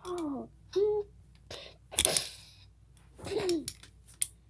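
A child's voice making short wordless cries that fall in pitch, three of them, with a breathy hissing burst about two seconds in. A sharp click near the end.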